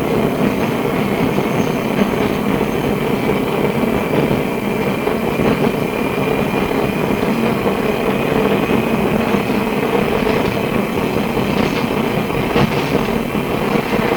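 Melbourne SW5 class tram running along its track, heard from inside the car: a steady rumble of wheels on rail with a faint whine, and a few clicks near the end.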